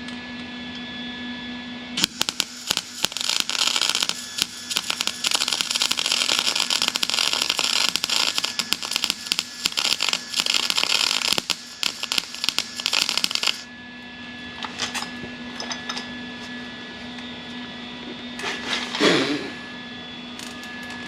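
Wire-feed welder running a weld bead on sheet steel for about eleven seconds, starting about two seconds in: a dense, steady crackle of the arc with the wire speed just turned up. A steady low hum runs underneath.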